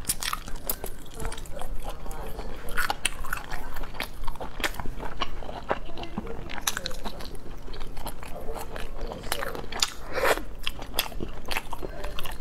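Close-miked chewing and sucking of spicy sea snail meat: an irregular run of wet mouth smacks and sharp clicks.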